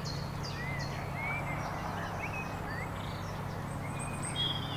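Small birds chirping, many short high calls and quick rising and falling notes, over a steady rush of running water.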